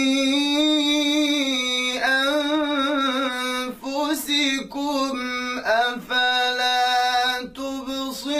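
A male reciter chanting the Quran in melodic tajweed style. He holds long notes with a wavering, ornamented pitch, in several phrases separated by brief pauses.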